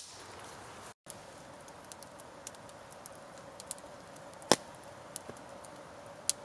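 Wood campfire burning with a steady hiss and scattered sharp crackles and pops, the loudest pop about four and a half seconds in and another near the end. The sound cuts out completely for a moment about a second in.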